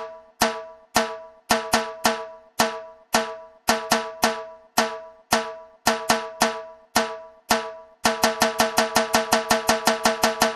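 Percussion music: a pitched, ringing drum struck in a short repeating pattern of strokes. About eight seconds in it switches to a fast, even run of about six strokes a second.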